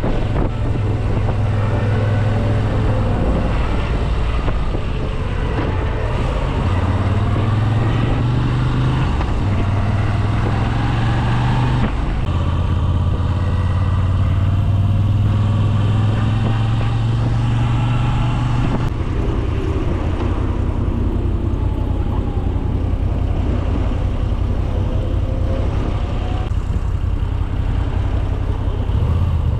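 Moto Guzzi V7 850 Spezial's air-cooled V-twin running on its stock exhaust, heard from inside the rider's helmet while under way. Its low engine note shifts pitch in steps several times as the engine speed changes.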